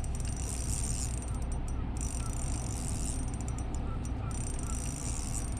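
Steady rumble and hiss of wind and water around a kayak, with a few faint short chirps.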